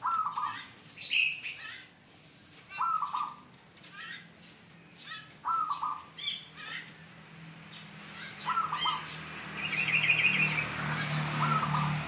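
Caged zebra dove (perkutut) cooing: a short burst of quick staccato coos, repeated about every three seconds, five times. Other small birds chirp higher in between, one with a fast trill about ten seconds in, and a low steady hum builds over the last few seconds.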